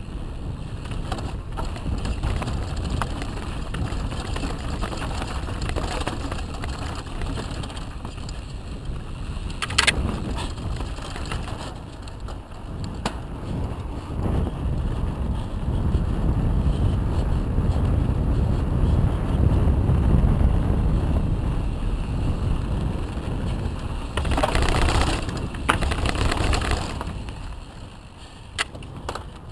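Mountain bike ridden fast downhill on a helmet or bar camera: a steady rumble of tyres on dirt, asphalt and gravel, mixed with wind on the microphone and the rattle of the bike. A few sharp knocks come from bumps, and a louder hiss lasts a few seconds near the end.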